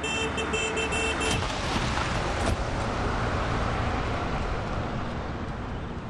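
Urban road traffic: a vehicle horn sounds for about a second and a half at the start, then steady traffic noise carries on.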